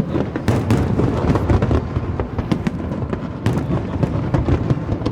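Aerial fireworks display: shells bursting in quick succession, many sharp bangs a second over a continuous low rumble of booms.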